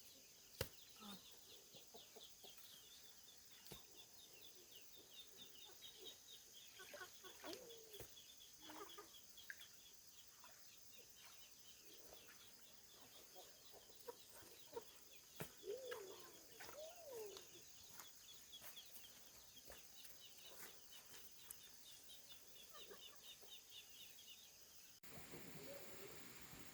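Faint farmyard poultry sounds: scattered clucks and short calls, with a stream of rapid high peeps and a steady high hum behind them, and a few sharp clicks.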